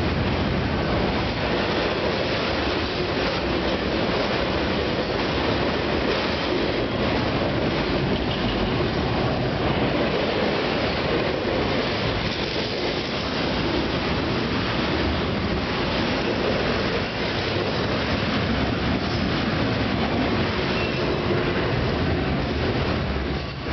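Double-stack intermodal freight train's well cars rolling past close by, a steady, continuous noise of steel wheels on rail, with a second freight train running alongside on the adjacent track.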